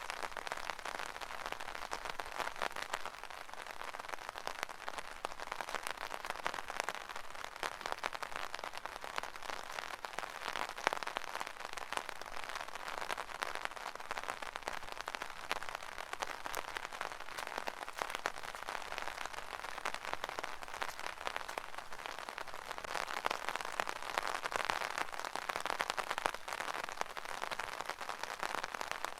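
Rain falling on an umbrella: a steady, dense stream of small drop impacts on the canopy, swelling a little louder around the middle and again near the end.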